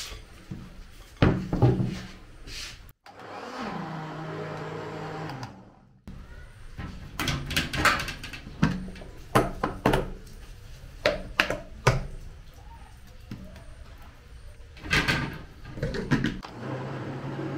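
Electric kitchen blender running for about three seconds, its pitch dropping and then settling as it takes the load. Before and after it come sharp knocks and clatter of kitchen handling, and the hum starts again near the end.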